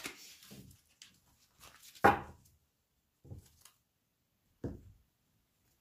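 A deck of oracle cards being shuffled by hand and knocked down on a table, making a few separate soft thuds with quiet between them. The loudest thud comes about two seconds in.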